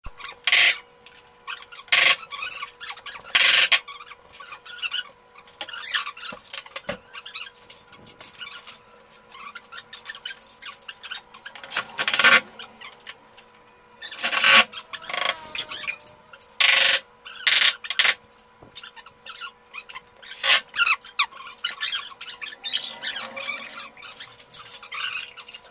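Irregular sharp knocks and short scraping, squeaking noises of carpentry work on a room partition, loudest about half a second, two seconds, three and a half seconds, twelve seconds and fourteen and a half seconds in, over a faint steady hum.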